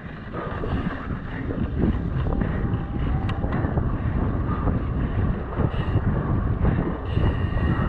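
Wind rushing over a chest-mounted action camera's microphone as a mountain bike rolls along a dirt trail, its tyres and frame jolting and rattling over bumps.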